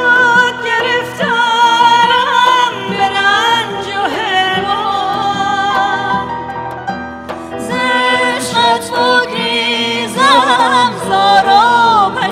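A woman singing a Persian song, holding long notes with a wavering vibrato over instrumental accompaniment. About ten seconds in the voice breaks into a run of quick ornamental trills.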